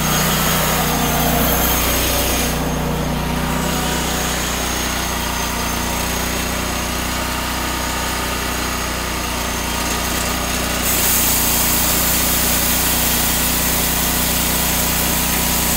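TimberKing 1600 portable band sawmill running steadily as its blade cuts through a pine log, an engine hum under the hiss of the saw. The hiss turns brighter and louder about eleven seconds in.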